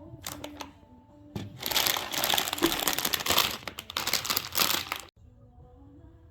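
Crinkling and rustling of packaging being handled, loud and continuous for about three and a half seconds before stopping abruptly, after a few light clicks.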